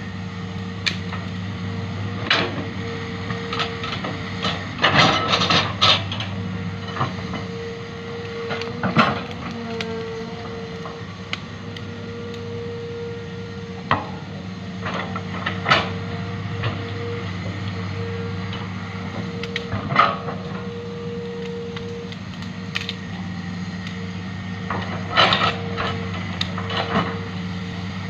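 Hitachi ZX200 excavator's diesel engine running steadily with a constant whine, punctuated by irregular sharp knocks and clanks.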